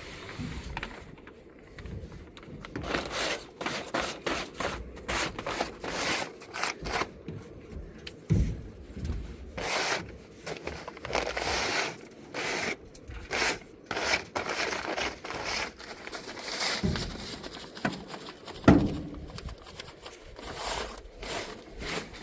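Repeated rough scraping strokes over a cowshed floor, roughly one a second, as manure is cleared out, with a louder knock near the end.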